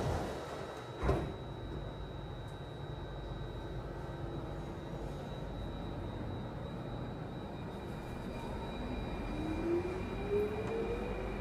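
Singapore MRT train heard from inside the carriage: the sliding doors shut with a single knock about a second in, then a steady low rumble and hum. Near the end a rising whine sets in as the traction motors pull the train away.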